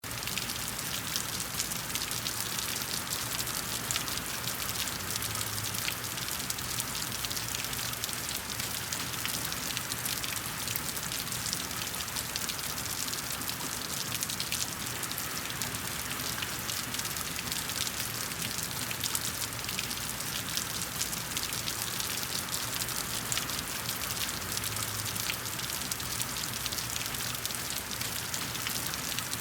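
Steady rain falling: an even, dense hiss of countless small drops, with fine ticks of individual drops through it.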